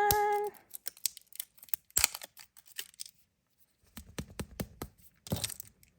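A held hummed note from her ends about half a second in, followed by small clicks, taps and scratches of packaging being handled and opened, with one sharper click about two seconds in.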